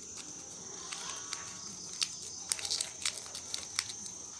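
A small piece of paper being folded and creased by hand, with a few sharp crinkles and clicks from about halfway through. A steady high-pitched insect trill runs underneath.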